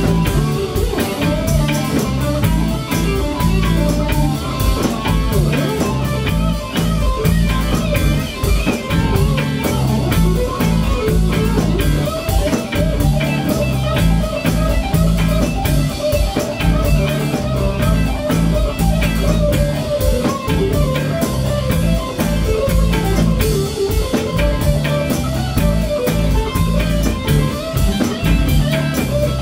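Live band playing an instrumental passage: two electric guitars over a drum kit, loud and steady, with no singing.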